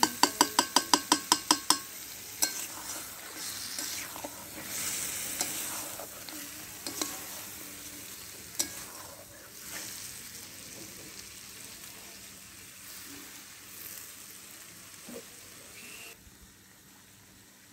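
A metal spatula clatters rapidly against a metal karahi about ten times at the start, each stroke ringing, then keeps scraping and stirring chicken and potato curry as the masala sizzles in oil. The sizzle grows fainter near the end.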